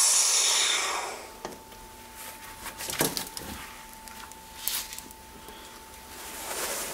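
Air hissing into a kydex vacuum press's silicone membrane as the vacuum is let go, fading out about a second in; then a few light knocks as the press lid is opened.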